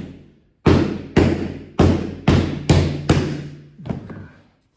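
Loud, resonant knocks on a hollow object, about two a second, each ringing briefly with a low hum before the next. The last strong knock comes about three seconds in, with a weaker one just before four seconds.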